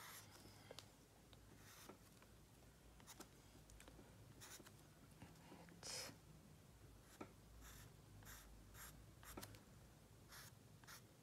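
Faint scratching of a drawing tool on paper in short, irregular strokes, with a slightly longer, louder stroke about six seconds in.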